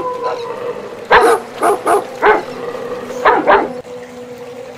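A dog barking: about half a dozen sharp barks in two bursts, four close together and then two more about a second later.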